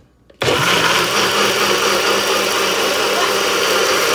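NutriBullet personal blender motor switching on about half a second in and running steadily at full speed, blending blackberries into juice.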